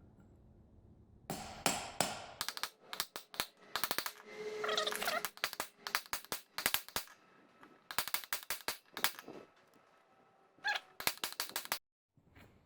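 Hammer striking a socket to drive a new bearing into the John Deere 550 tiller's housing: sharp metal-on-metal blows in several quick runs with short pauses between them.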